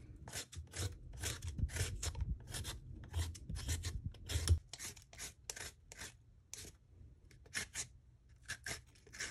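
Vegetable peeler scraping strips of skin off a raw sweet potato in quick repeated strokes, about two a second, growing sparser in the second half.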